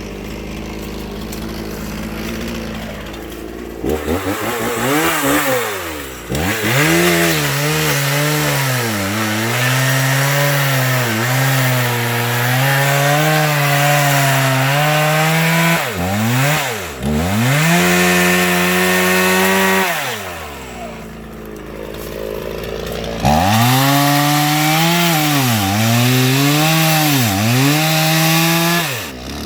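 Chainsaw idling, then revved up and cutting firewood logs, its engine pitch sagging and recovering under load with each bite into the wood. It drops back to idle about two-thirds of the way through, then revs into another cut.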